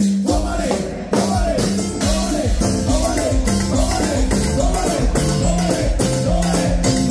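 Live band playing upbeat Latin dance music: a drum kit keeping a steady beat under bass, with a short melodic riff repeated over and over.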